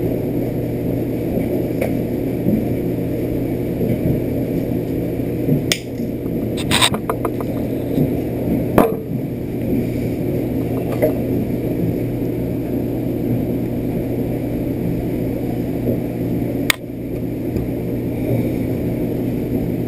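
A steady low hum, with a few sharp clicks and taps of small parts and tools being handled at a workbench, one of them a quick rattle of ticks about seven seconds in.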